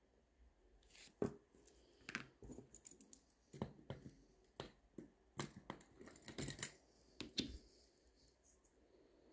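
A series of irregular small metallic clicks and taps as watchmaking tools handle and seat small parts of a Miyota 8215 watch movement.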